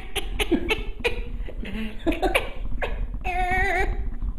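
A man making wordless noises in a put-on 'trash humper' character voice: short bent vocal sounds, then a longer wavering, quavering sound a little over three seconds in.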